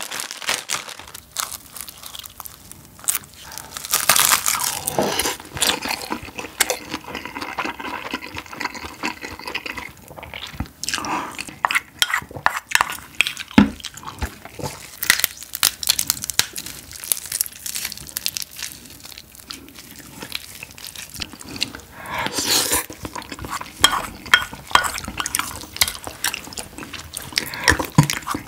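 Close-miked eating and food-handling sounds: a plastic packet of seasoned laver crinkling and dry seaweed crunching, with a spoon clinking and scraping in a ceramic bowl of rice and soft chewing. There are several louder stretches of crackling, the strongest about four seconds in and again past twenty seconds.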